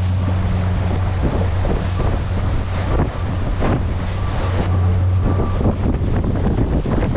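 Boat engine running with a steady low hum, under heavy wind buffeting the microphone and the rush of water.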